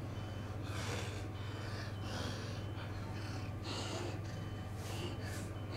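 A man breathing hard in a series of noisy breaths, about one a second, over a low steady hum.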